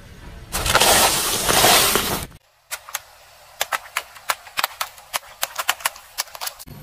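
A car tyre crushing baguette slices in aluminium foil trays: a loud crunching and crinkling for about two seconds that cuts off abruptly. Then a row of water balloons bursts one after another under the rolling tyre, a rapid string of sharp pops.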